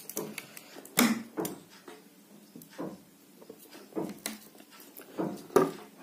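A few scattered clicks and light knocks: scissors snipping the excess tie off a ceiling fan stator's bundled lead wires, and the stator being handled on the table.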